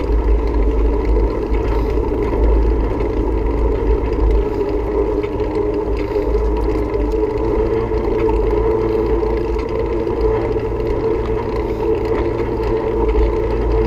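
Wind buffeting the microphone of a moving bicycle, a heavy, fluttering rumble, over a steady whir from the rolling bike.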